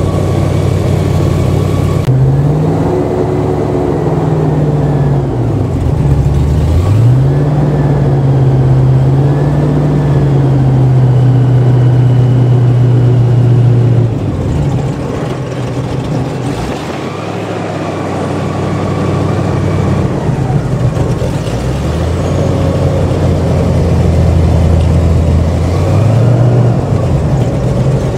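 Airboat engine and propeller running loud and revving up and down as the boat moves through the marsh. The engine note drops sharply about six seconds in and climbs back, eases off through the middle, then revs up again near the end.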